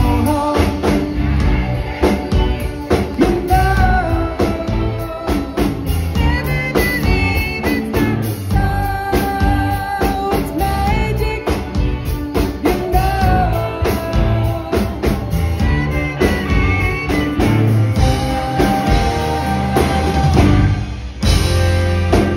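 Live rock band playing a song: a male lead vocal over drum kit, electric guitar and keyboards, loud from the stage sound system.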